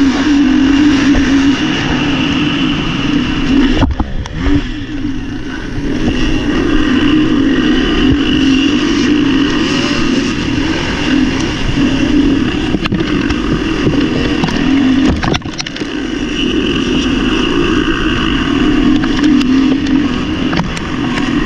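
MX1-class motocross bike engine at full throttle, heard close up from the rider's own bike, accelerating away from a race start and down the track. It briefly backs off twice, about four seconds in and again about fifteen seconds in.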